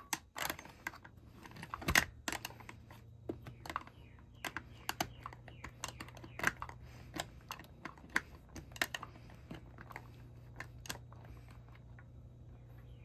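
Irregular light clicks and taps of plastic wire connectors and wires being handled and pushed into place inside a plastic electrical box, thinning out near the end, over a faint steady low hum.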